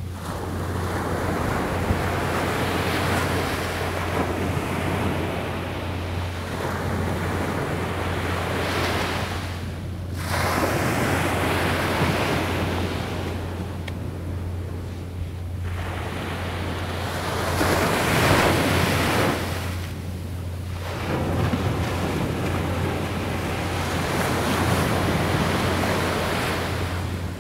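Sea surf breaking and washing up a beach, coming in surges every five seconds or so, with a steady low rumble of wind on the microphone beneath it.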